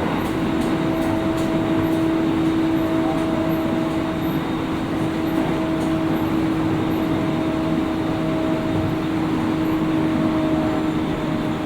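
On-board running sound of a JR East 701 series 5500-subseries electric train, heard inside the motor car: a steady rumble with an even, unchanging hum, the train running at a steady speed. A few faint clicks come in the first second or so.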